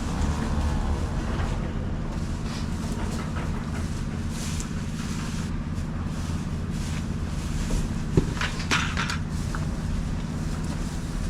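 Tractor engine running steadily with a low hum. There is a sharp knock about eight seconds in, followed by a brief rattle.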